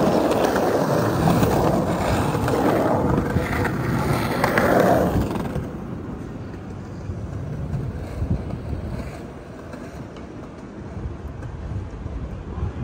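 Skateboard wheels rolling over a concrete sidewalk as a group of skateboarders passes, a loud rumble that drops off about five and a half seconds in. A quieter low rumble of city street traffic follows.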